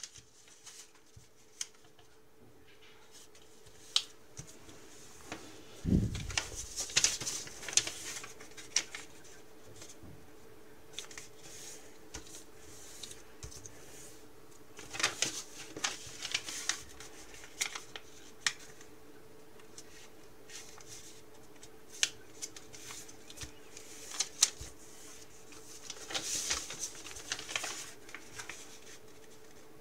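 A square of origami paper being folded and creased by hand on a wooden table: intermittent rustling and crinkling with sharp creasing clicks, in three busier bouts, over a faint steady hum.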